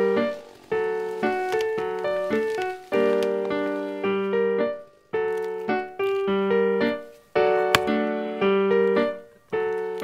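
Background music: a slow keyboard tune of struck notes and chords, each note starting sharply and fading before the next, with one sharp click near the end.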